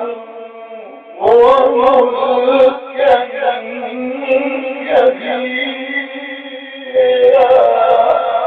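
A man reciting the Quran in a melodic, chanted style, drawing out long ornamented notes. A new phrase begins about a second in.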